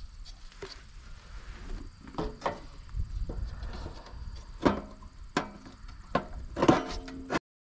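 Aluminium face frame of an RV water heater knocking and clattering as it is handled and pressed into place against the heater and trailer siding: a string of sharp knocks, some with a short metallic ring, the loudest two about halfway and near the end, over a low rumble. The sound cuts off suddenly near the end.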